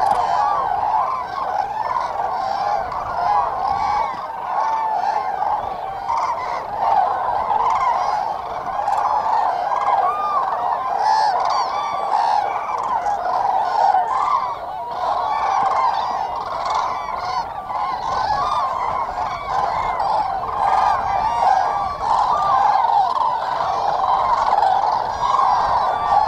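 A large flock of common cranes calling all at once: a dense, continuous chorus of overlapping trumpeting calls.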